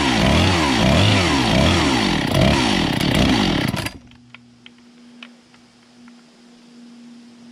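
Husqvarna 257 two-stroke chainsaw running, its engine speed rising and falling about twice a second while the idle screw of its freshly rebuilt carburettor is being set. About four seconds in the engine cuts off suddenly, leaving a faint steady hum and a few light clicks.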